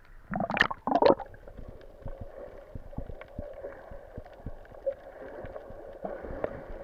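Sea water splashing about half a second in as a waterproof action camera goes under the surface, then the muffled sound of being underwater, with a faint steady hum and scattered small clicks.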